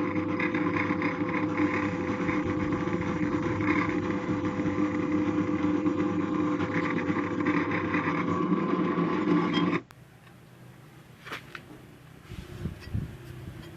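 Homemade drill press driven by a washing-machine motor and gearbox running steadily, then cutting off suddenly about ten seconds in. A few faint knocks follow.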